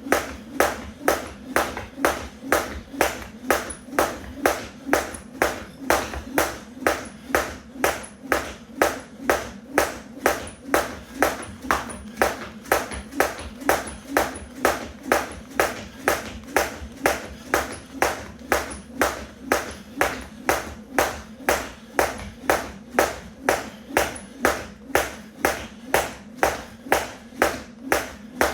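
Weighted 1 lb jump rope slapping the floor on each turn, a sharp, even slap about twice a second.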